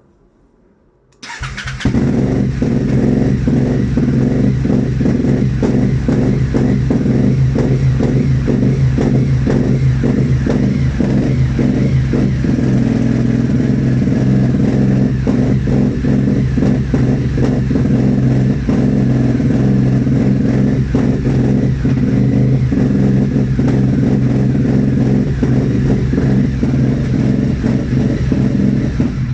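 Aprilia Shiver 750 motorcycle's V-twin engine turning over. A loud, steady, pulsing mechanical drone starts about a second in and stops abruptly at the end.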